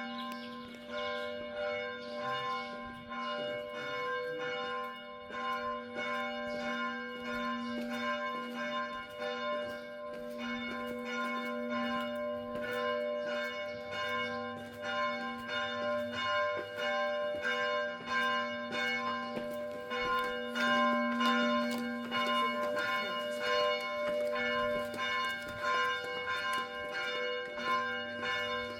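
Church bells ringing continuously in quick, repeated strikes, several bells sounding together over a steady ringing tone that never dies away.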